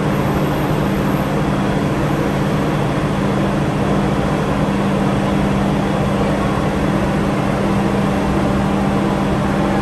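Steady, loud machinery drone with a low hum.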